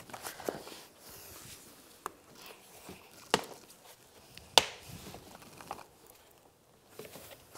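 Plastic lower grille clipping into a plastic bumper cover: several sharp clicks about a second apart, the loudest about four and a half seconds in, with faint handling and rubbing of plastic between them.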